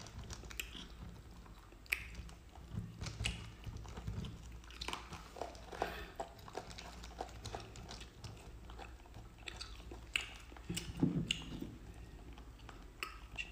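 Soft, scattered clicks and rustles from a baby monkey's hands picking through dried mulberries in a jar, with small chewing crunches as it eats them.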